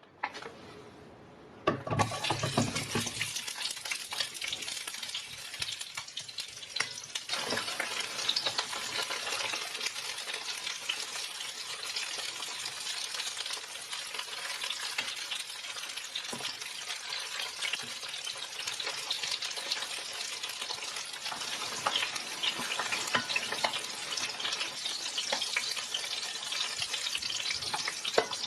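Food frying in hot oil in a pan: a steady sizzle that starts abruptly about two seconds in, with scattered clicks of a utensil stirring.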